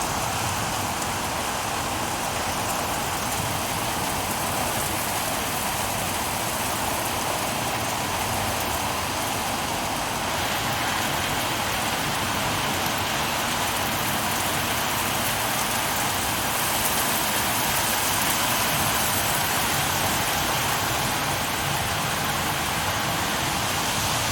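Steady hiss of heavy thunderstorm rain pouring down in strong, gusting wind.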